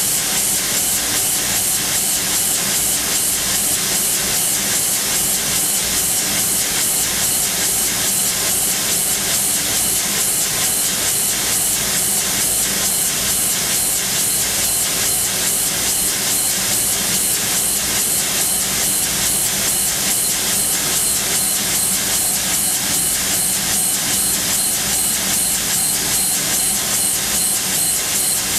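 Machining centre spindle running at 13,000 rpm while an OSG three-flute carbide drill, 1 mm across, peck-drills hardened SKD61 tool steel, heard as a steady high hiss with a fast, even pulsing from the repeated pecks.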